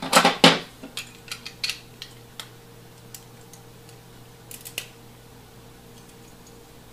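Plastic Lego bricks clicking and snapping together as they are pressed on and handled: a quick run of sharp clicks in the first two seconds, then two more a little past the middle.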